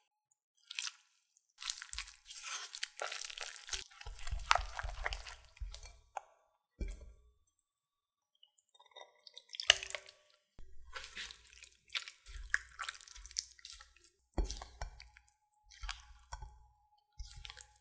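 Thick rice-flour batter being stirred with a spatula: wet squelching and sticky stirring noises, then chicken pieces being turned through the batter. The noises come in irregular bursts with short pauses, and a few sharp knocks come from the utensil hitting the bowl.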